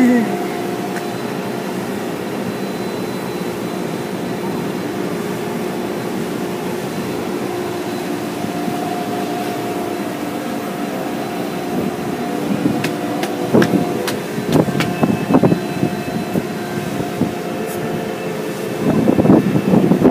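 Automatic car wash machinery running with a steady hum of several held tones. About two-thirds of the way through, irregular clattering knocks start, turning dense and louder near the end.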